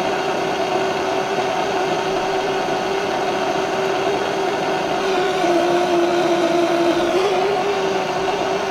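Propane blow lamp burning steadily, a loud rushing noise with a low hum that drops slightly in pitch about halfway through, as it heats a soldered copper pipe joint until the solder runs around the fitting.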